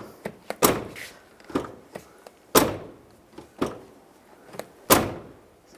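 Truck door (2008 Chevrolet Avalanche) being shut repeatedly: three loud thuds about two seconds apart, with lighter knocks between. The door is being test-closed to check its fit and alignment on freshly adjusted hinges.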